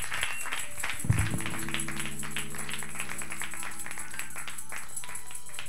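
Audience applauding, with a low sustained chord held underneath from about a second and a half in until shortly before the end. There is a microphone thump about a second in, as the handheld microphone is passed over.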